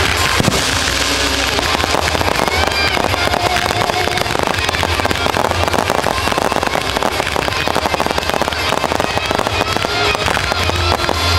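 Fireworks display: a dense barrage of ground-launched comets and gold crackling shells, giving rapid continuous popping and crackling with bangs, over music.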